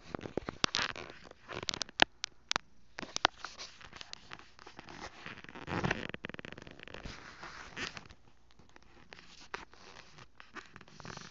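Handling noise from a phone being moved and repositioned against clothing and blankets: rustling with sharp clicks and scrapes, busiest in the first few seconds and fainter and sparser after that.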